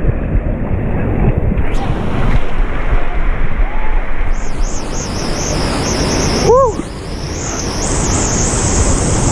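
Waterfall and rapids rushing close by, with wind buffeting the microphone. A high hiss joins about halfway, and a short voice-like call is heard about two-thirds of the way in.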